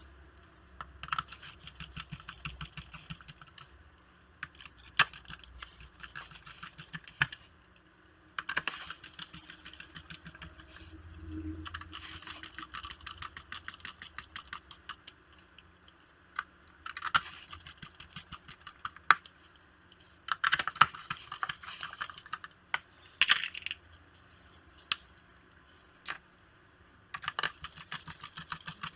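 Runs of rapid small clicks and taps, with a few sharper single clicks: plastic laptop case parts and small screws being handled and fastened by hand during reassembly.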